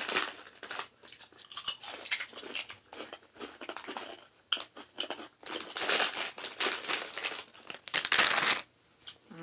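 Potato chip bag crinkling and chips crunching, a run of irregular sharp crackles and crunches.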